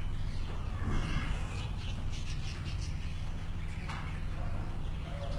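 A flock of budgerigars chirping and chattering in short scattered calls, over a steady low hum.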